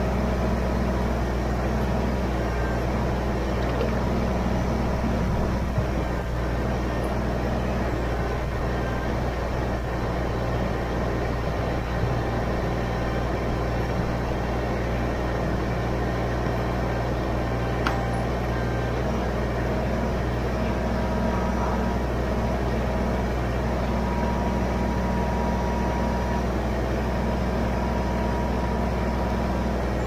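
Kubota BX23S compact tractor's three-cylinder diesel engine running steadily while it powers the backhoe digging out a stump, with a few light knocks.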